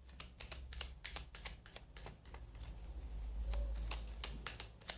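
Tarot cards being shuffled and handled on a table: a run of irregular crisp clicks and taps, with a low rumble that swells about three and a half seconds in.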